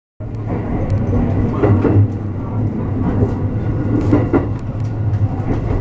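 Interior running noise of a 223 series 2000-number electric train moving off from a station: a steady low hum over wheel-on-rail rumble, with scattered clicks.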